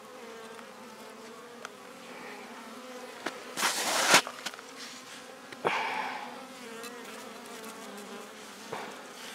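Honeybees buzzing in flight around a busy hive entrance: a steady low hum. A brief louder noise comes about three and a half seconds in, and a softer one around six seconds.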